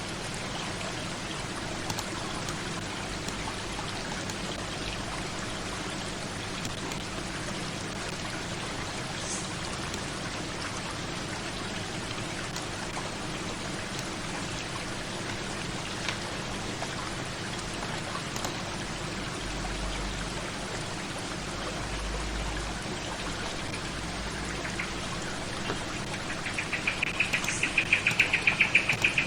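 Steady hiss of rain. Near the end a rapid, high pulsing sound comes in and grows louder.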